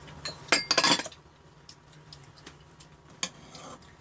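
Spoons and chopsticks clinking and scraping against bowls and a pot during a meal, with a loud cluster of clatter about half a second in and a few light clicks after.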